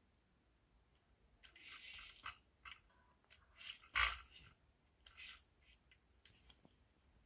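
Unboxing handling noise: packaging and kit parts being handled, with scattered rustles and small clicks and one louder knock about four seconds in.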